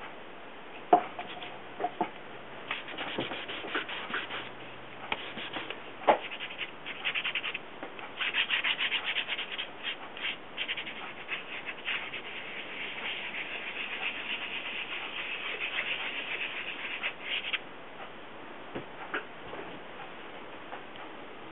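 Quick back-and-forth rubbing strokes of a tool laying colour onto a surface, in runs from about three seconds in until about seventeen and a half seconds. A few light knocks sound in the first six seconds.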